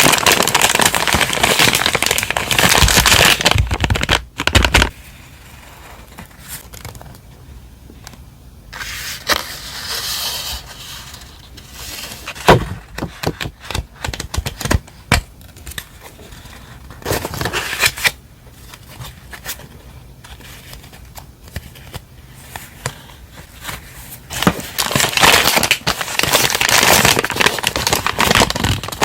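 Stationery packaging being handled and unwrapped: crinkling and rustling for the first few seconds and again for the last few, with scattered taps, clicks and short rustles between.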